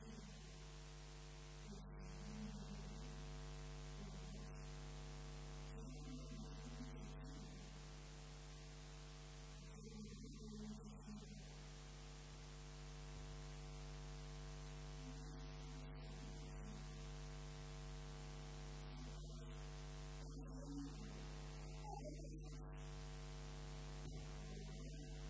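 Steady electrical mains hum, a low buzz with many overtones.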